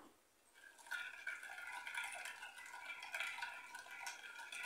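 Metal spoon stirring a thin liquid batter of yeast, sugar, water and eggs in a glass bowl, with light scraping against the bowl. A faint steady ringing tone runs underneath from about half a second in.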